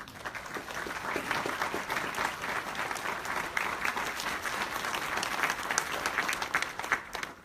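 Audience applauding: many hands clapping together, building up over the first second and stopping quickly near the end.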